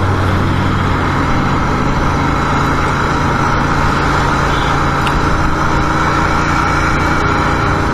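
Royal Enfield motorcycle running steadily while riding along the road, its engine note holding even under a constant rush of road and air noise.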